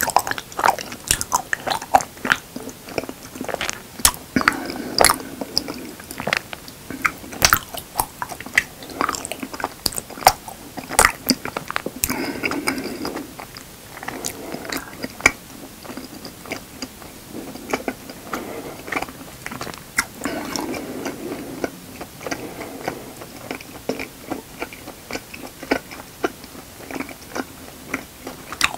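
Close-miked chewing of raw honeycomb. Many sharp mouth clicks come as the wax comb is chewed, thicker in the first half and sparser later on.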